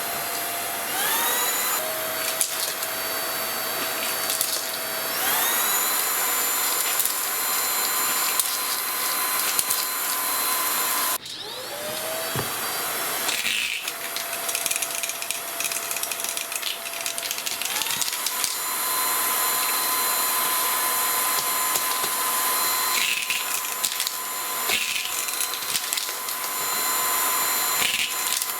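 Aposen H250 cordless stick vacuum running with a steady motor whine. Its pitch glides up and settles several times as the motor speeds up, and about 11 seconds in it cuts off and spins up again. Sharp clicks and rattles come from small metal items, thumbtacks and pennies, being sucked up.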